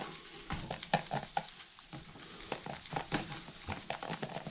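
Salt pouring from a canister's spout onto raw deer backstrap on a tray, with hands working it into the meat: a light, irregular patter of small taps and rubbing.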